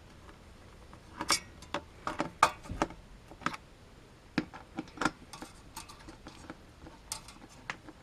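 Irregular small clicks and taps of metal screws and heatsink mounting hardware being handled and fitted into the mounting holes of a CPU heatsink bracket, starting about a second in.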